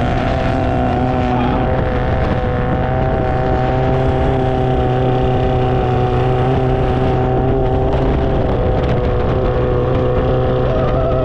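Long-tail boat engine running steadily at an even pitch under way, with the rush of water and wind beneath it.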